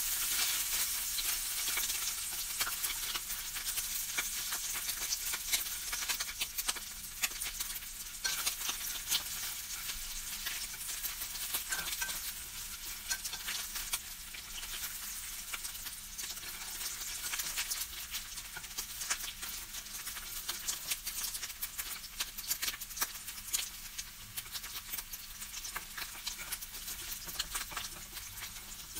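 Sliced bacon sizzling and crackling in its fat in a nonstick frying pan, with the light taps and scrapes of wooden chopsticks turning the pieces. The sizzle slowly eases off toward the end.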